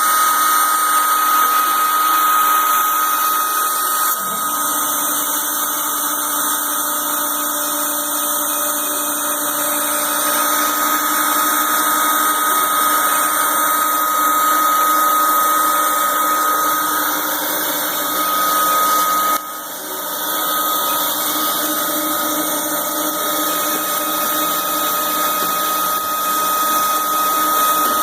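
CNC router spindle running with a steady high-pitched whine while surfacing the machine's bed. A lower hum joins about four seconds in, and the level dips briefly about two-thirds of the way through.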